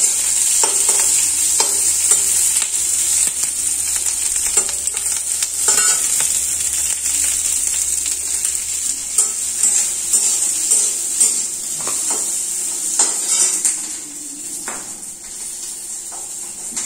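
Sliced onion and green capsicum sizzling in a little oil in a steel kadhai while a steel spatula stirs them, scraping and clinking against the pan now and then; the onion is being sautéed until translucent. The sizzle grows quieter about three-quarters of the way through.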